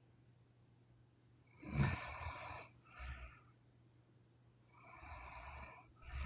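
A sleeping woman snoring: one loud snore with a low rumble about two seconds in, a short breath soon after, and a longer, airy breath near the end.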